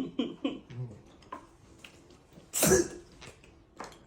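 A man sneezes once, loudly, about two and a half seconds in.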